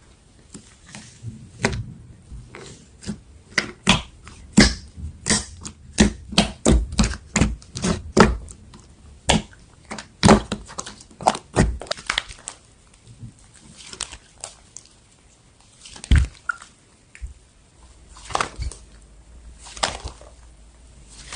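Slime being squeezed and poked by hand, making a quick run of sharp clicks and pops, close together over the first half and more spaced out later.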